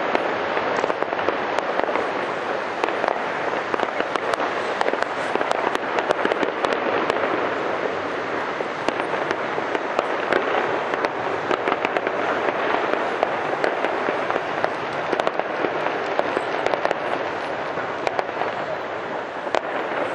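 Fireworks display: a dense, continuous crackle of bursting shells with many sharp cracks.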